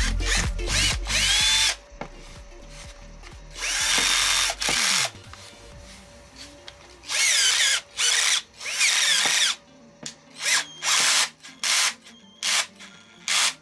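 Panzer lithium-ion cordless drill running in a series of trigger bursts, the motor and gearbox whine spinning up and winding down. The early bursts last up to about a second; several quick short blips come in the last few seconds. The drill is being test-run after gearbox maintenance.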